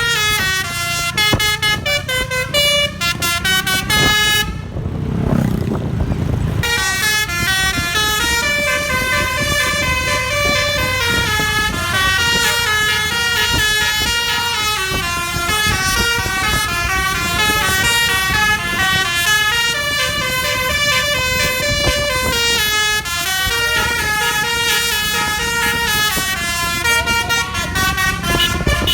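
Bus basuri (telolet) multi-tone air horns on the roof playing a fast melody, the notes stepping up and down in quick succession. The horns break off briefly about four and a half seconds in, leaving a low rumble, then start up again.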